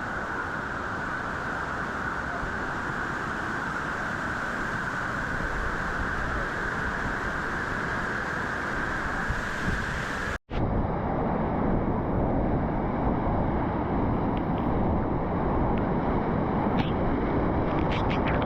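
Steady rushing of a waterfall and creek water. About ten seconds in there is a short break, after which the rushing is louder and deeper.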